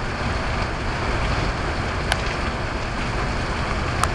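Steady rain falling, with wind noise on the microphone and two short ticks, one about halfway through and one near the end.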